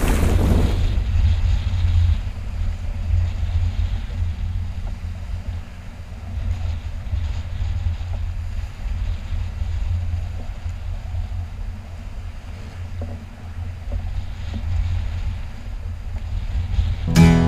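Strong wind buffeting the microphone as a steady low rumble aboard a sailboat under way in rough seas, with a faint rush of water from the waves and wake. Acoustic guitar music starts near the end.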